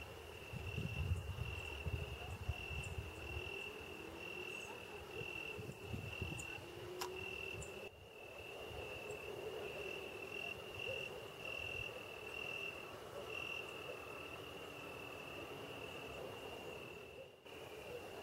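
Cricket chirping in a steady high-pitched pulsing trill, with a fainter lower chorus of night insects beneath it. A few soft low thumps sound in the first few seconds.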